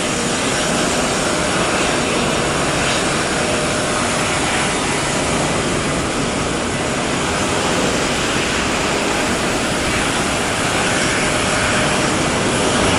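Steady, even rushing noise of airport apron ambience with aircraft engines running.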